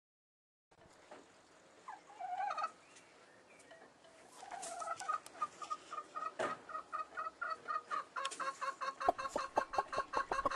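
Broody hen clucking: a few scattered calls, then a run of quick, even clucks that grows steadily louder.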